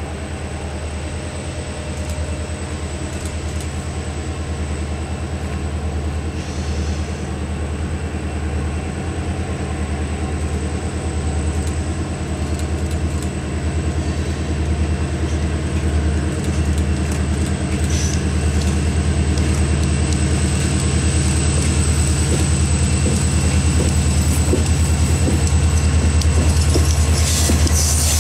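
EMD diesel-electric locomotive approaching with a freight train, its steady low engine drone growing louder as it nears.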